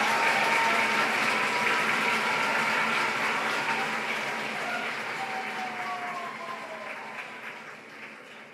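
Theatre audience applauding, a dense clapping that slowly dies away toward the end.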